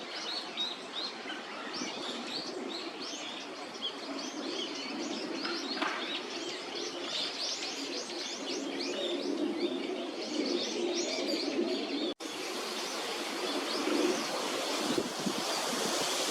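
Waterbirds calling, Eurasian coots with Eurasian wigeons: many short high calls overlapping above lower calls. About three-quarters of the way through, the sound cuts abruptly to a steadier hiss with fewer calls.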